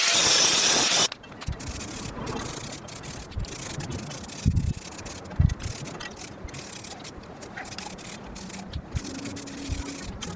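An angle grinder fitted with a sanding disc runs with a loud, even noise and cuts off suddenly about a second in. Then quieter rubbing and scraping sounds follow, with two low knocks near the middle.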